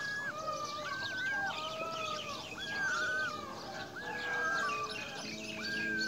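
Several birds calling: repeated held whistled notes, each about half a second long and coming roughly once a second, over a thick background of short, high chirps.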